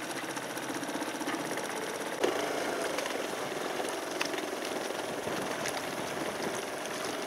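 Small boat's engine running steadily with a fast, even chugging, from a dghajsa water taxi under way, with a single sharp knock about two seconds in.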